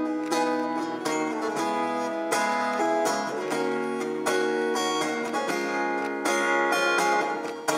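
Live music: an instrumental passage led by strummed acoustic guitar chords in an even rhythm, with no singing.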